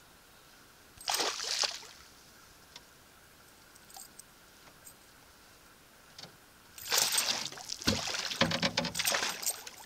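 A hooked northern pike splashing at the surface beside a canoe: one short splash about a second in, then a longer bout of thrashing and splashing from about seven seconds in until near the end.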